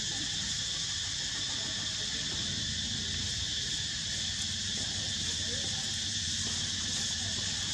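Steady chorus of insects, a continuous high-pitched drone with several layered pitches and no breaks.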